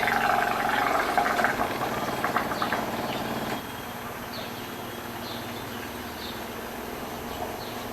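Water rushing into a Brastemp BWG11 washing machine through its inlet valve, then cutting off suddenly about three and a half seconds in, leaving a low steady hum. The fill stopping on its own is the machine's intermittent water-inlet fault.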